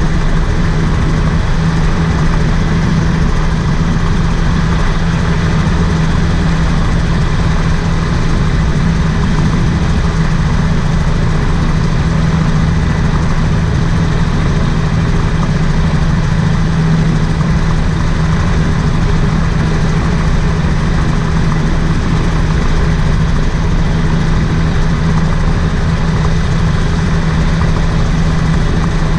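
Rotax 582 two-stroke twin engine of a gyroplane on floats, running at a steady pitch as the aircraft taxis on the water. Over it is a constant rushing noise.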